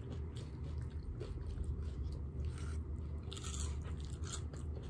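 Chewing and biting of crunchy fried food close to the microphone: a string of short, crisp crunches over a steady low hum.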